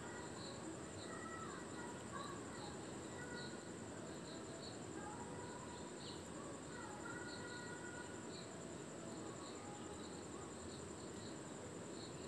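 Outdoor ambience dominated by a steady high-pitched insect trill. Short bird whistles and chirps come now and then.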